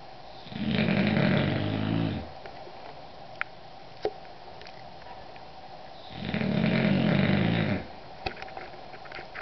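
English bulldog snoring in its sleep: two long snores about five seconds apart, with a few faint clicks in between.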